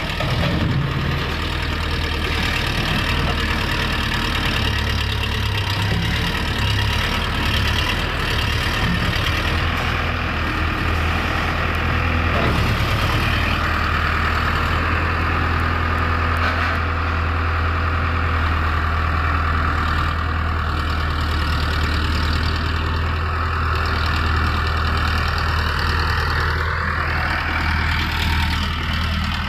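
Abel AB-7 backhoe loader's diesel engine running steadily with a deep hum, and a whine that shifts in pitch near the end.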